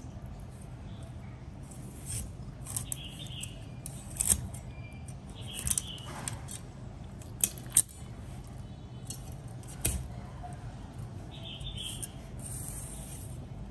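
Cleaver blade slicing and scraping through moray eel flesh on a plastic cutting board, with several sharp taps of the blade against the board and short scraping sounds in between. A steady low hum runs underneath.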